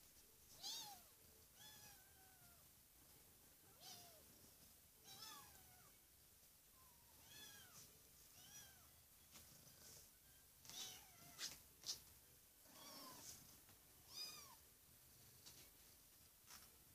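Five-week-old kittens mewing again and again as they crowd in to nurse: short, high-pitched mews that rise and fall, about one a second. Two sharp clicks near the middle are the loudest sounds.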